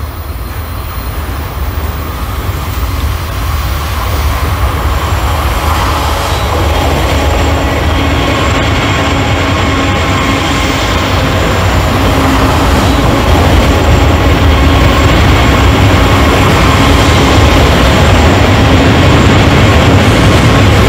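Sound-equipped HO-scale diesel locomotives of a freight train running downgrade, with a steady low rumble and a held hum. It grows louder over the first few seconds as the train draws near.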